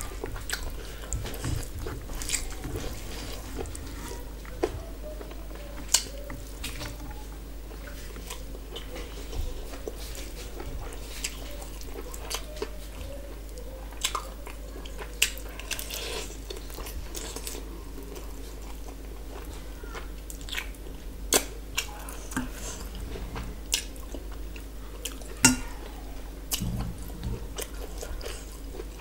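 Close-up eating sounds: chewing and crunching mouthfuls of rice, fried small prawns and curry eaten by hand, with many short sharp clicks and crackles scattered throughout.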